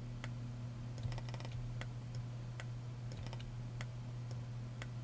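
Irregular clicks and taps of a computer keyboard and mouse at a desk, a few per second, over a steady low electrical hum.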